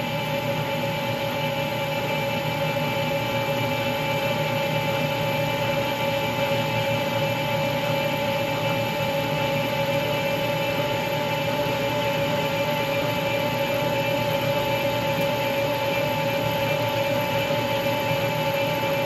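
Metal lathe running steadily with its chuck spinning, giving an even mechanical hum with a steady two-note whine from the machine.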